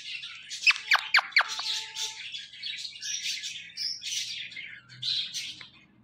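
Indian ringneck parakeet calling: a quick run of steeply falling whistled chirps about a second in, then softer scratchy chatter.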